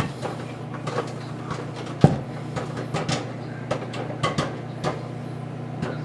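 Hamilton Beach microwave oven running: a steady low hum with scattered light clicks, and one sharp knock about two seconds in.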